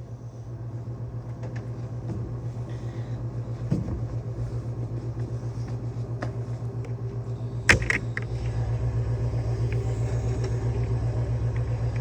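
A motor running steadily with a pulsing low hum, and a single sharp knock about eight seconds in, after which it runs slightly louder.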